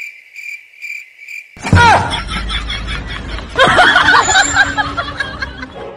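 A cricket chirping in quick repeated pulses, about four or five a second, against an otherwise silent track. After about a second and a half it gives way to loud voices with swooping, sliding pitch.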